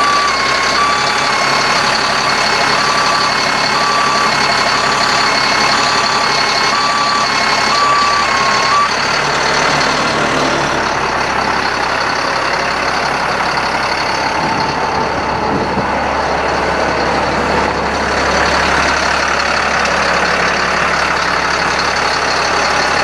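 The outrigger motion alarm on a Terex Hi-Ranger bucket truck beeps about once a second while the outrigger is lowered, stopping about nine seconds in. Under it the GMC C7500's diesel engine runs steadily, driving the hydraulics through the engaged PTO.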